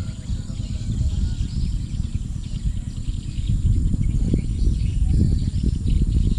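Outdoor ambience: an uneven low rumble with faint bird chirps and a thin, steady high-pitched hum.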